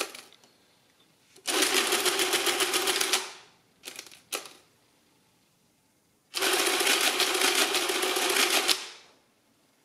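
Madas BZS electric mechanical calculator running its motor-driven mechanism in two bursts of about two seconds each, a fast even ticking clatter over a steady motor hum. A few single key clicks come between the bursts as numbers are keyed in.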